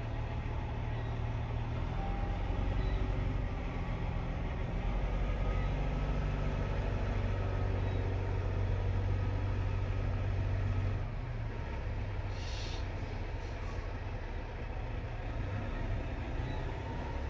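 The 2006 Peterbilt 379's CAT C15 diesel idling steadily, heard from inside the cab; its low rumble eases slightly about eleven seconds in. A brief hiss comes about twelve seconds in.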